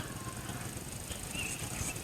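The last of a junglefowl's crow trails off in the first moment. After it comes a faint, steady outdoor background with a few faint high chirps about a second in.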